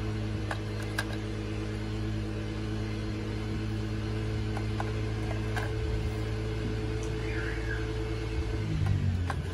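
A steady low hum with a clear pitch that stops shortly before the end, with a few faint clicks of a plastic toy being handled while batteries are fitted.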